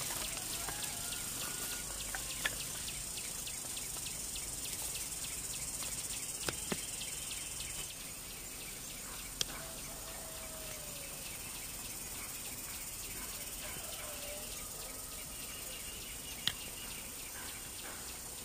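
Steady high-pitched insect chorus, with faint short bird calls and a few sharp clicks.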